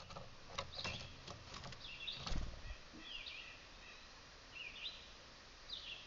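Small songbirds giving short chirps every second or so, with a few sharp taps and clicks in the first couple of seconds and one low thump.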